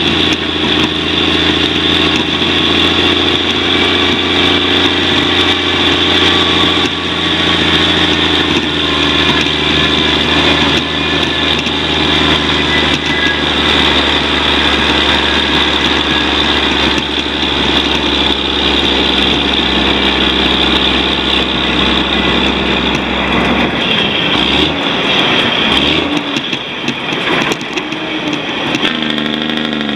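A loaded log truck's diesel engine runs steadily under a constant rush of road and wind noise as the truck travels. About three-quarters of the way through, the low engine note drops away briefly, and near the end the engine pitch climbs.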